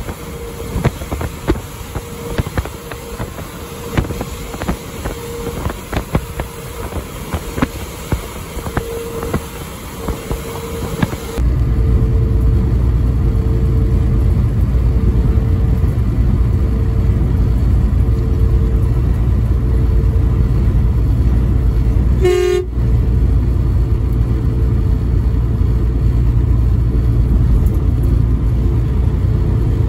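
Steady road and engine noise heard from inside a vehicle driving at highway speed. About a third of the way through it changes abruptly to a louder, deeper rumble. A short pitched tone sounds once about two-thirds of the way through.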